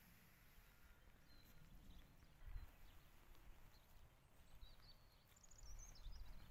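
Near silence: quiet rural outdoor ambience with a faint low wind rumble on the microphone, and faint high bird chirps a little before the end.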